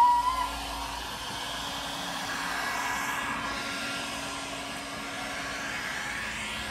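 Heat gun blowing steadily as it warms vinyl wrap on a van panel. A brief rising whistle sounds at the very start.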